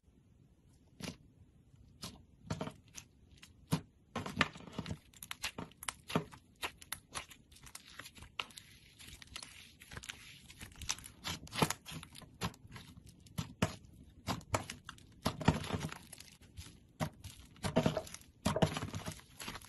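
Slime being squeezed, stretched and poked by hand, giving irregular sticky clicks, pops and crackles that start about a second in and come in dense clusters.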